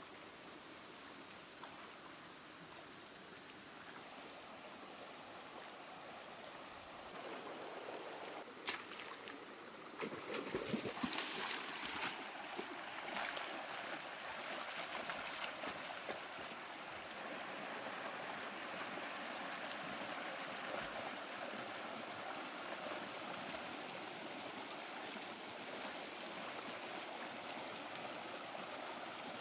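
Stream water running over rocks. It gets louder about a quarter of the way in, then keeps up a steady rush, with a few sharp splashes a third of the way in from someone wading and crawling through the water.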